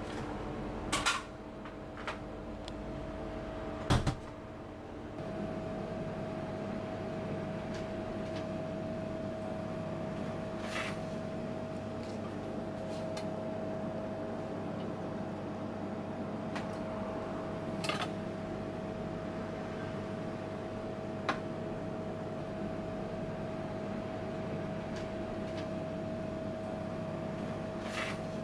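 Kitchen background: a steady machine hum from kitchen equipment, with a few sharp clicks and knocks of utensils or doors, the loudest about four seconds in.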